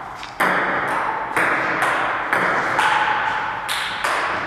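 Table tennis rally: the celluloid ball clicking off the paddles and bouncing on the table, about two hits a second, each click ringing on in a bare, echoing room.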